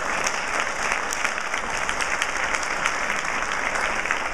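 An audience applauding: many hands clapping steadily.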